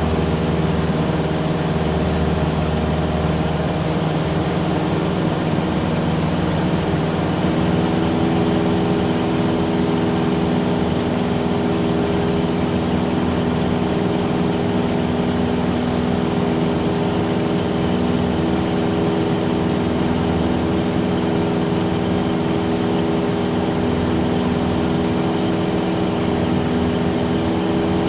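Cessna 177's piston engine and propeller running steadily in flight. Its drone shifts slightly in pitch a few seconds in, then holds even.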